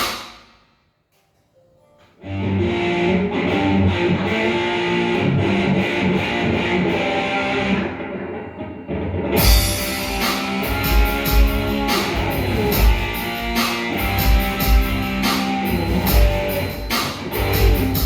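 Rock band playing live: the music breaks off for a moment, then guitar comes back in about two seconds in, and the drums join with a full beat about halfway through.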